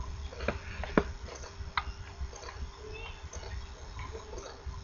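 Light, scattered clicks and taps of a circuit board and its component leads being handled during hand soldering, the sharpest about a second in, over a low rumble and a faint steady hum.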